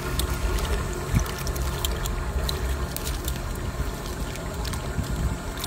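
Nylon bottom net paying out through the hands, its mesh and floats rustling with scattered light ticks, over a steady low rumble.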